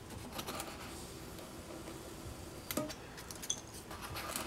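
Light clicks, taps and rustling from small foam pieces being slid along a wooden guide and set down on a plywood jig while being cut on a hot wire foam cutter, with one sharper click a little under three seconds in.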